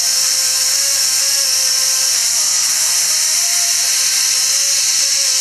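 Music played at high volume through an HTC EVO 4G phone's small loudspeaker, a loud, harsh hiss over a faint, wavering melody. It is the test of a blown speaker just repaired by lifting its film with a needle, and it still sounds a little bad at full volume.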